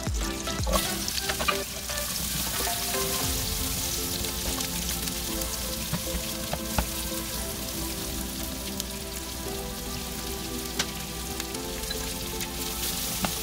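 Sliced red onions sizzling as they fry in butter in a nonstick pan, stirred with a slotted spatula, with a few light knocks of the spatula, over background music.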